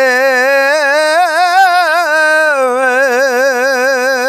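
A man singing Punjabi sufiana kalam unaccompanied, holding one long drawn-out note with a steady vibrato at the end of a sung line. The note lifts a little about a second in and settles back down about halfway through.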